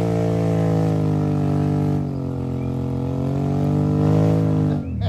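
Off-road vehicle engine running with a steady pitch. The pitch sags about two seconds in, climbs back over the next two seconds, then breaks off abruptly just before the end.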